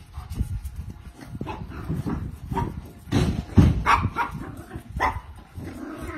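Dogs barking and whining, short barks at uneven intervals, loudest about three to four seconds in and again near five seconds.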